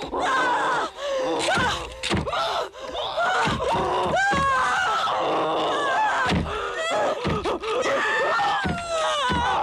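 A woman screaming and crying out in distress over repeated heavy thuds of a door being slammed and banged again and again.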